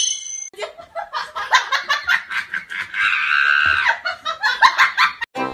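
A person laughing in quick repeated bursts, with a longer high-pitched stretch of laughter about three seconds in.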